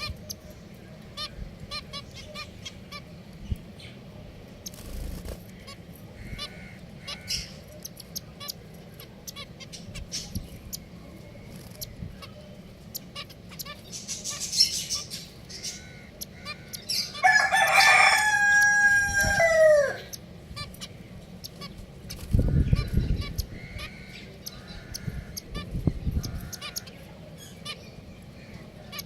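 A rooster crows once, about 17 seconds in: a loud call of about three seconds that ends in a falling slide. Short high chirps run throughout, typical of small caged finches.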